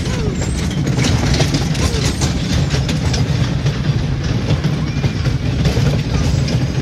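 Steel wheels of a 1952 Allan Herschell kiddie coaster train rolling along its steel track: a steady low rumble with a constant patter of small clacks from the rail joints.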